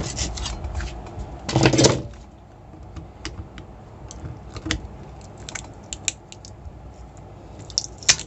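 The last hacksaw strokes on a transformer's copper secondary winding, then a brief louder clatter as the saw is set down. After that come light metallic clicks and taps of pliers gripping and pulling at the cut winding against the transformer's steel core.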